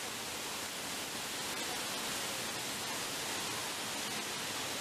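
Waterfall pouring into its plunge pool: a steady rushing hiss of falling water.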